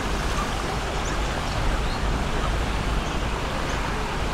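Steady outdoor city ambience: an even wash of noise over a low rumble, with a few faint short high chirps.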